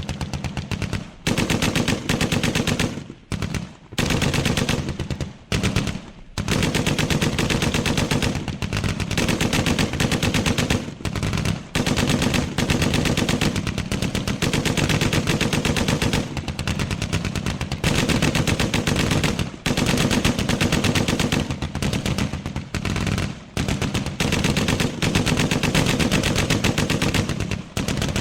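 Sustained automatic machine-gun fire in long rapid bursts, with brief pauses between bursts in the first few seconds and near-continuous firing after that.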